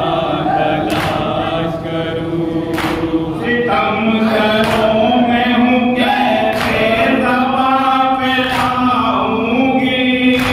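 Men's voices chanting a noha in unison through a microphone, a lament sung line by line. A group striking their chests in unison (matam) lands a sharp slap about every two seconds, keeping the beat.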